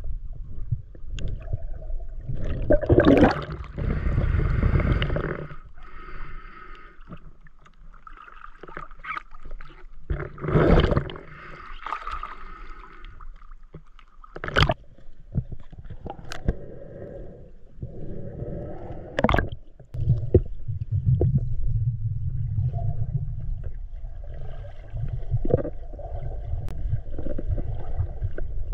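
Water gurgling and sloshing around an action camera in its waterproof housing, heard through a muffled low rumble, with several sharp knocks against the housing.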